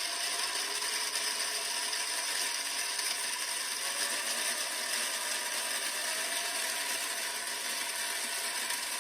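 3D-printed gearbox driven by a 350 W DC motor spinning at high speed: a steady whir and rattle of plastic gear teeth, with faint rising tones as the speed climbs.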